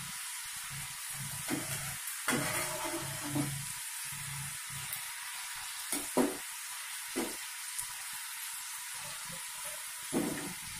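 Potato French fries sizzling steadily in hot oil during their second fry, with a few short metallic knocks from a perforated steel skimmer stirring them against the pan.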